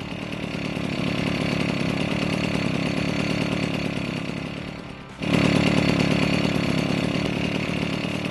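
Bullet Train two-stroke motorized-bicycle engine running as the bike rides along, a buzzing, chainsaw-like note. It grows louder over the first second and fades a little, then about five seconds in it cuts suddenly to a louder, closer engine sound.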